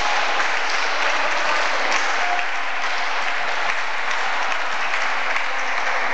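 Applause: many hands clapping steadily.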